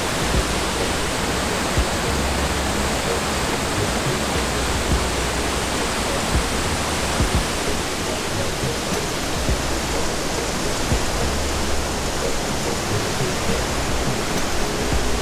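Water pouring over a dam's spillway wall and rushing through the rocky rapids below it: a steady, loud rush.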